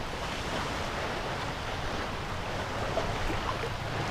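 Choppy shallow water lapping and splashing close to the microphone, with wind noise.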